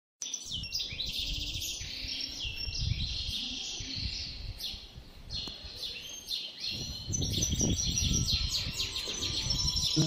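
Several birds chirping and singing in quick, overlapping high calls and trills, over a low rumble that grows louder about seven seconds in.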